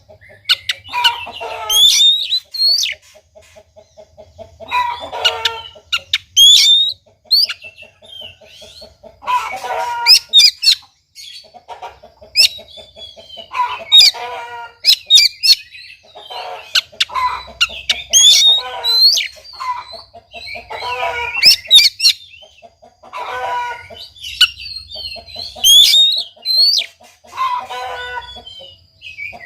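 Oriental magpie-robin (kacer) singing a repeated phrase about every four seconds: a quick low rattling run of notes, then loud harsh calls broken by sharp, high whistles.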